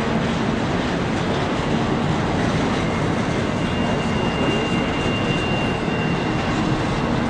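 Double-stack container well cars of a freight train rolling past, a steady noise of steel wheels on rail. A thin, high squeal comes in around the middle for a couple of seconds, typical of wheel flanges on the curve.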